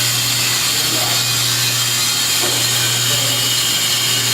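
Steady machine noise from a vacuum reflow oven running: a constant low hum under a high whine and hiss.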